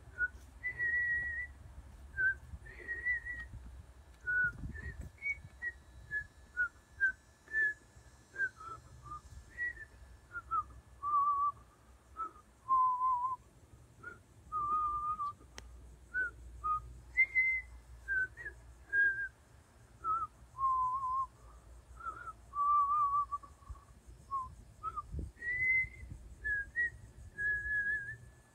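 A person whistling a slow tune: a long string of clear single notes, some short and some held with a slight waver, moving up and down between pitches. Wind rumbles on the microphone underneath.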